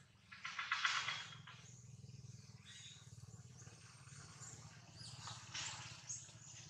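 Macaques in a tree giving a few short, harsh calls, the loudest about half a second in and lasting about a second, more near the end, over a steady low hum.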